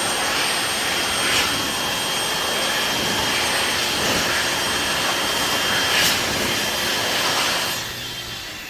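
Electric hand dryer blowing: a steady loud rush of air with a thin high motor whine, dying away near the end.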